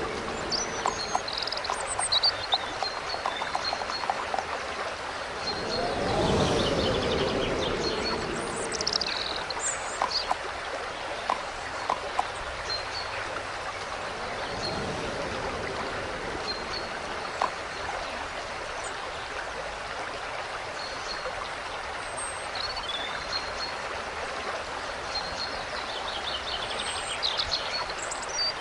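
Babbling stream running steadily, with small birds chirping now and then. A brief pitched call rises and falls about six seconds in.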